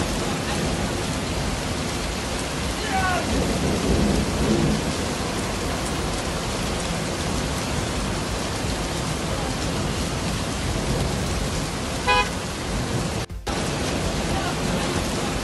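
Steady rushing noise of a muddy flash-flood torrent with heavy rain. A brief pitched sound, a short horn-like toot or shout, comes about twelve seconds in, and the sound drops out for a moment soon after.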